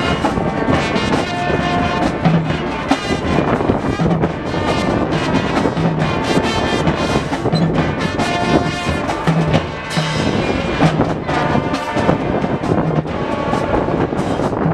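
High school marching band playing, brass section sustaining notes over a steady beat of drums.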